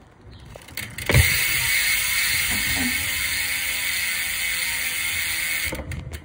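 Radius rear hub buzzing as the rear wheel freewheels: the ratchet clicks come so fast they blend into a steady, high buzz. It starts with a knock about a second in and stops just before the end.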